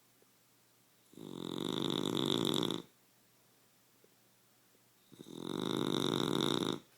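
Two long snores about four seconds apart, each lasting under two seconds, with a high whistling note running through the rasp.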